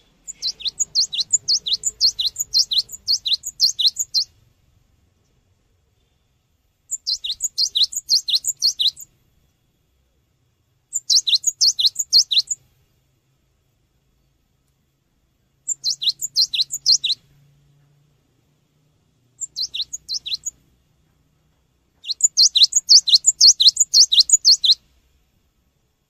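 Cinereous tit (gelatik batu) singing: six bursts of rapid, sharp, high repeated notes, about three or four a second. The first and last bursts run three to four seconds, the others one to two, with short pauses between.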